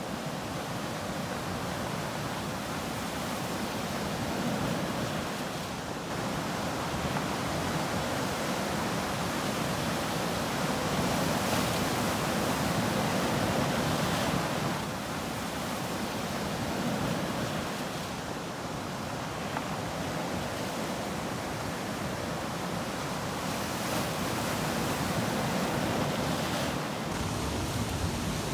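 Ocean surf: a steady wash of waves breaking and rolling onto the shore, swelling and easing slowly.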